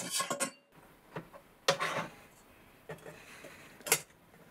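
Steel parts being handled on a tool and cutter grinder table: a few metal clinks and knocks as a turned steel hub is lifted off and a carbide-tipped circular saw blade is set down, with a louder knock a little before two seconds in and a sharp clink near the end.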